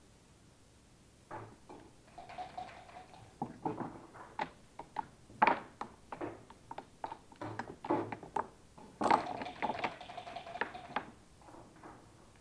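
Backgammon play: a string of sharp clicks and clatters of checkers and dice on the board, with two longer rattles of dice shaken in a cup, one about two seconds in and one about nine seconds in.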